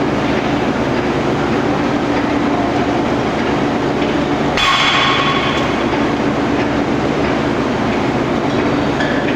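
Steady loud din of forging-line machinery in a forge shop. About four and a half seconds in, a brief sharp burst of higher noise with a ringing tone cuts through for about a second.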